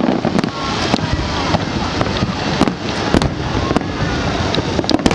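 Aerial fireworks display: a dense run of shells bursting, sharp bangs several times a second over a continuous crackle.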